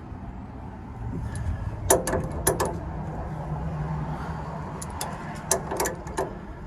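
Metal clinks and knocks of a large wrench working the Pitman arm nut loose on a 1980 Chevy C30's steering gear, in two short clusters of sharp strikes over a low steady hum.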